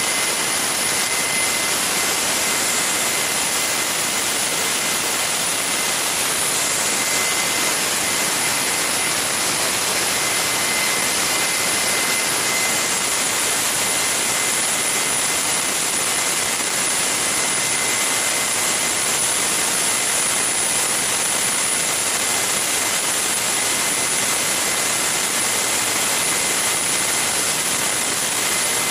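Garrett GTCP85 auxiliary power unit, a small gas turbine, running steadily at speed and driving its alternator: a continuous rush of air with a steady high whine.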